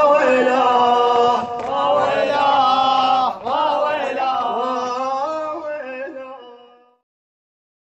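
Male voices chanting the end of a Shia latmiya lament, with no accompanying instruments, fading out about six to seven seconds in and ending in silence.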